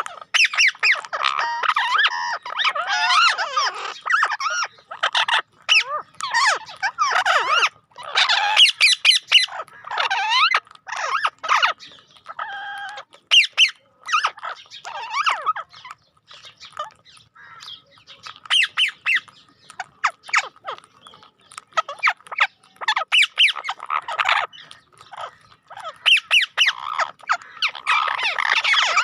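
Bird squawks and chirps in quick, irregular bursts with short gaps, played as a phone ringtone.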